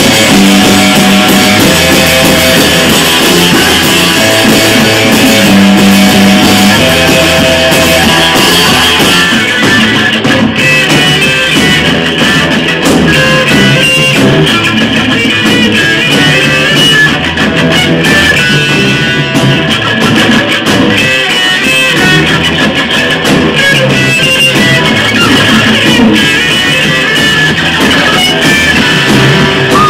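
Loud live rock band playing: electric guitar, bass guitar and drum kit together.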